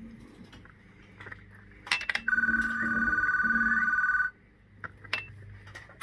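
A steady electronic ringing tone sounds for about two seconds mid-way and cuts off abruptly, after a couple of faint clicks; the rest is quiet shop background.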